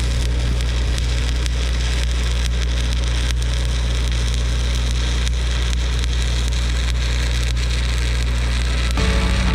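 Electric arc welding: a steady crackling sizzle with scattered sharp pops over a low steady hum. Music comes in near the end.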